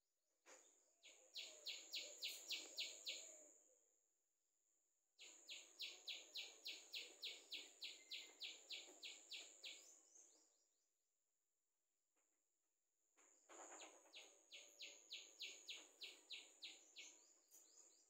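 Faint repeated bird calls in three bouts, each a run of evenly spaced chirps at about three to four a second, over a thin steady high tone.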